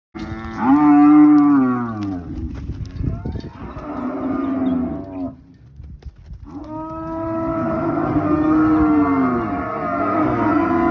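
Cattle mooing: a loud call near the start, a weaker one about four seconds in, then after a short pause a long run of overlapping calls at different pitches from more than one animal.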